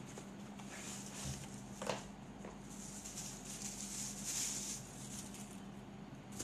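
Cardboard box and packaging of a multi-screwdriver set being handled as it is opened and the tool slid out: soft rustling, a light click about two seconds in, and a longer stretch of rustling in the middle. A faint steady hum runs underneath.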